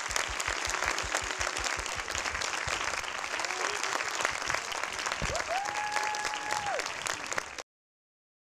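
An audience and panel applauding after a talk, a dense steady clapping, with one long high call held above it about five seconds in. The applause cuts off abruptly near the end.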